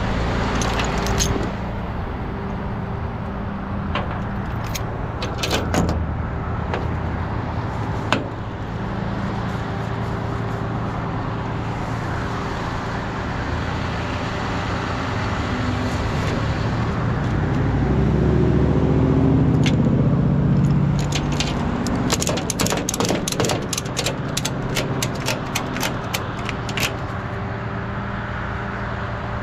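Rollback tow truck's diesel engine running steadily at idle, with sharp metallic clicks and rattles of tie-down chains and strap hardware being handled on the steel deck, thickest in a rapid run of clicks about three-quarters of the way through. A louder low rumble swells and fades a little past the middle.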